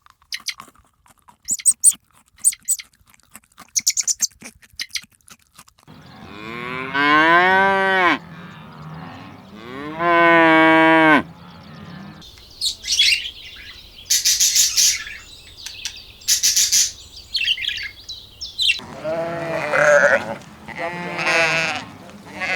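A run of farm animal calls: high chirps at first, then two long calls that slide down in pitch, then shrill high cries, and a string of wavering bleats near the end.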